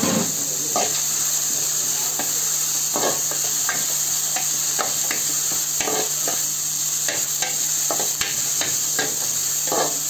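Sliced onions, green chillies and peppercorns sizzling in oil in a thin metal pan while a steel spatula stirs them, scraping and knocking against the pan in short, irregular strokes over a steady frying hiss.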